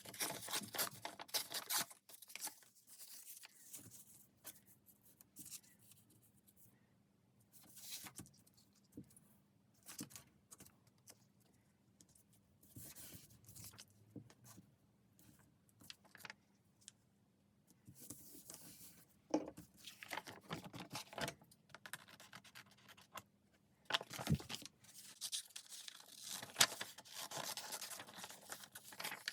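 Paper and craft materials being handled at close range: irregular rustling, scraping and crinkling in short spells, busiest at the start and over the last third.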